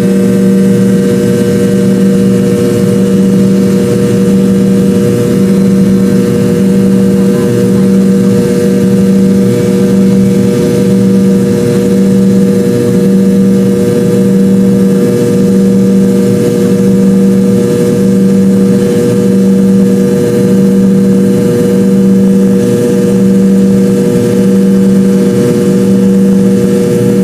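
McDonnell Douglas MD-82/83 airliner's Pratt & Whitney JT8D turbofan engines running during the takeoff: a loud, steady drone made of several held tones, the lowest pulsing slightly.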